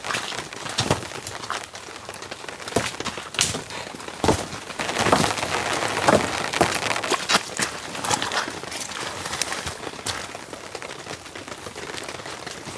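Steady rain, with sharp cracks and clattering of dead wooden branches being carried and dropped onto a pile on the ground. The cracks are densest and loudest about five to seven seconds in.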